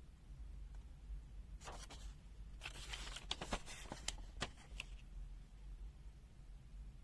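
Handling noise: two short spells of rustling about one and a half and three seconds in, with several sharp clicks in the second, over a low steady hum.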